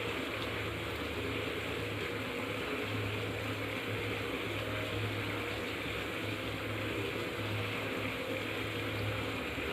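Pot of coffee heating on a lit gas burner: a steady hiss of the flame and simmering liquid.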